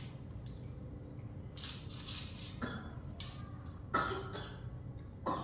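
Eating sounds at a shared meal: a few light clinks and scrapes of a spoon on plates, with a short rustle about two seconds in.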